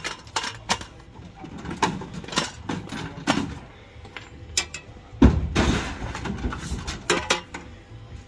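Scrap being handled and pulled out of the back of a van: irregular clanks, knocks and rattles of metal and plastic, the loudest a heavy thump about five seconds in.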